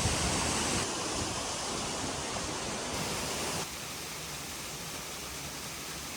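Steady rushing noise of moving water, with the level dropping abruptly about a second in and again past the halfway point.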